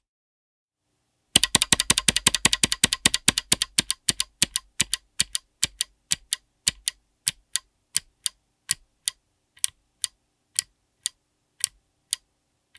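Kailh BOX Crystal Jade clicky switches on a mechanical keyboard being typed on: a quick flurry of sharp clicks starting about a second in, slowing to single keystrokes about two a second.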